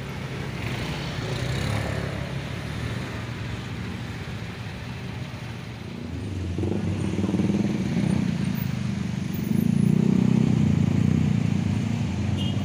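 Car and motorcycle engines running in stalled, queued traffic: a low, steady engine hum that grows louder about halfway through and again a few seconds later.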